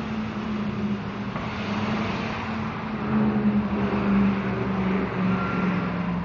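A motor vehicle's engine running, growing louder about three seconds in, with a reversing alarm starting to beep near the end.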